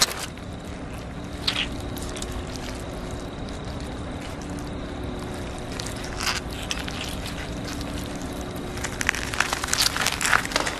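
Steady low background hum with a few short soft clicks and rustles, clustered near the end.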